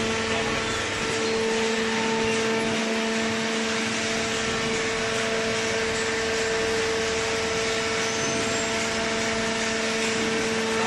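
Hydraulic baler's power unit running with a steady, unchanging hum over an even mechanical noise.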